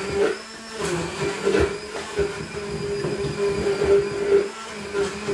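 Electric stick blender running in a glass jug, blending ice cream with milk: a steady motor whine whose loudness wavers, with short clicks from the blade working through the thick mix.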